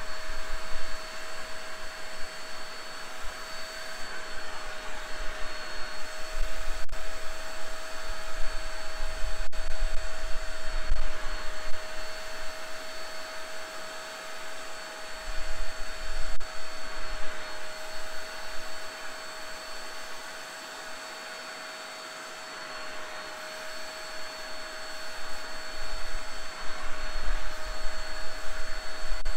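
Vax SpotWash Duo spot cleaner running with a steady motor whine and suction hiss as its hand tool is drawn over a carpet floor mat, extracting dirty water. The suction noise swells and fades as the tool is pushed and lifted, with a low rumble that comes and goes.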